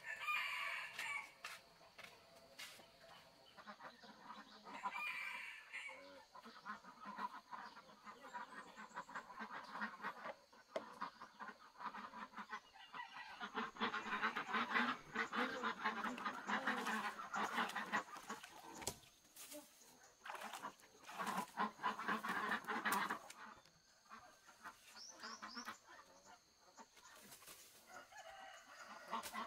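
Chickens clucking repeatedly, heaviest about halfway through, over scattered knocks and scrapes from hand work.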